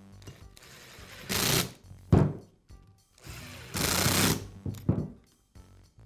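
Cordless impact driver running in two short runs of rapid hammering as it drives the screws that hold the polisher's gear head on, with a sharp knock about two seconds in.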